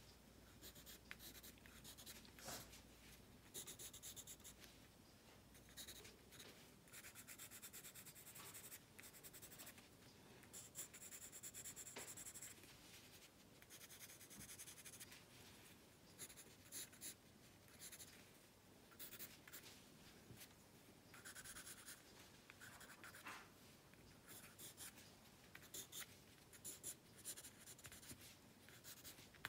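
Pencil scratching on drawing paper: faint, irregular runs of short sketching and shading strokes, some quick and some drawn out for a second or so.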